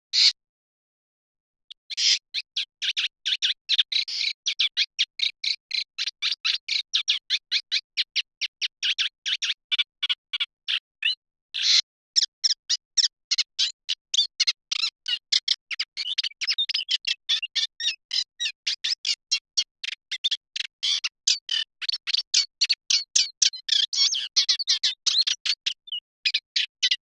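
Eurasian reed warbler singing: a long, fast chatter of short repeated high notes that starts about two seconds in after a single brief note, with short pauses about halfway through and near the end.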